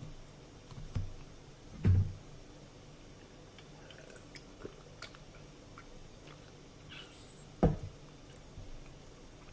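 A few clicks and soft thumps at a desk as a computer mouse is clicked: thumps about one and two seconds in and a louder one near the end, with faint clicks between, over a faint steady hum.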